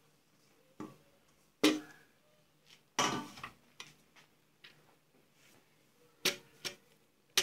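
A metal ladle knocking and scraping against a large aluminium pot while spreading a layer of cooked rice. There are about eight short, separate clinks and scrapes with quiet gaps between; the longest is a scrape about three seconds in.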